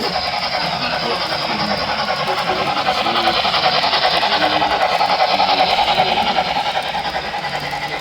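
A model train running along the layout's track close by, its motor and wheels on the rails growing louder to a peak about halfway through and then easing off as it passes.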